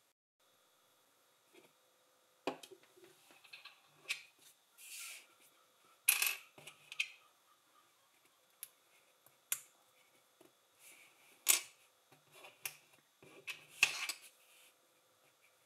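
Plastic LEGO pieces being handled and pressed together: irregular sharp clicks and clacks with brief rustles between them.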